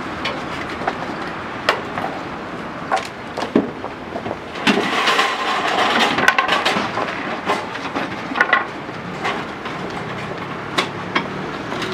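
Irregular knocks and clatter of wooden boards and metal fittings being handled, busiest about five to seven seconds in, over steady road traffic.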